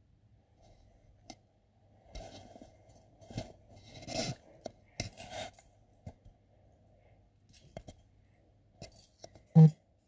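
Small metal jewellery pieces (rings and chains) clicking and clinking softly in scattered bursts as a hand picks them up from a pile on a carpet. A single loud, dull thump comes near the end.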